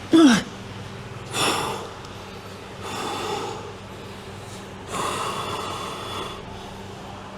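A man breathing hard from the effort of handstand practice: a short grunt falling in pitch, then three heavy breaths, the last one long, over a steady low hum.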